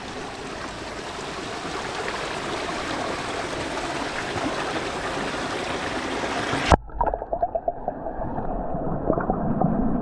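Stream water rushing over rocks, heard with the microphone just above the surface. About seven seconds in, the camera plunges under the water: the sound turns muffled, with underwater gurgling and scattered bubble pops.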